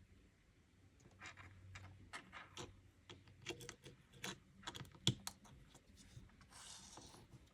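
Small plastic LEGO minifigure pieces clicking and tapping as they are handled and fitted together: a quick, irregular run of light clicks with one sharper snap about five seconds in, then a brief rustle near the end.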